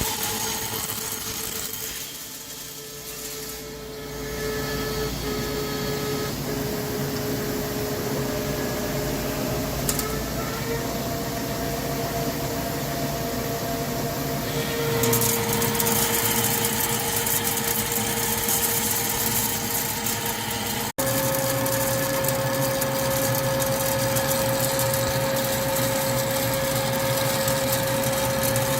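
CNC lathe running, a steady machine whine whose pitch steps up a little. A hiss joins about halfway through. The sound breaks off for an instant near the end, then the whine carries on slightly higher.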